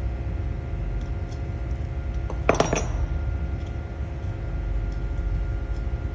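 A quick cluster of sharp metallic clinks with a bright ring, about two and a half seconds in, as metal tools or parts knock together during wheel-stud work. Under it a steady low machine hum runs.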